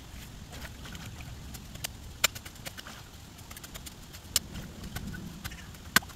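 Scattered sharp clicks and knocks, three louder ones about two seconds apart, over a steady low rumble.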